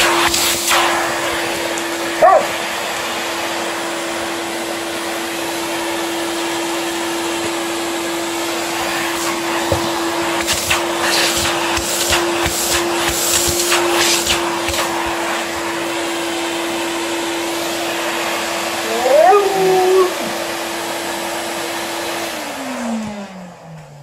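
Vacuum cleaner running with a steady motor hum and suction noise as it is pushed over a hard floor, then switched off near the end, its motor winding down in falling pitch. An Alaskan Malamute gives a short gliding vocal call about nineteen seconds in, with a brief whine near the start.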